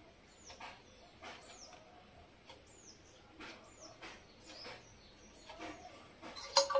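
A small bird chirping, about five short high chirps that each fall in pitch, spaced roughly a second apart, with faint clicks from handling a sewing machine while it is threaded.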